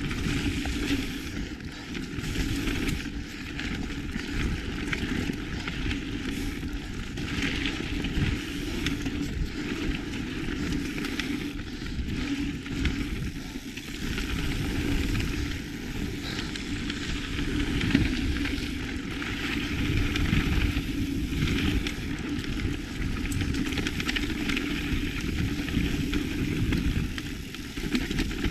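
Mountain bike riding a dirt trail: a continuous rumble and crackle of tyres on dirt, with the bike rattling over bumps. The noise rises and falls as the ground changes.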